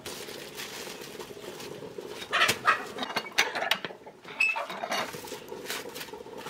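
Metal tortilla press being worked by hand: the lid and lever clack down onto a ball of masa between plastic sheets, with several sharp knocks over a few seconds and plastic crinkling as the tortilla is lifted off.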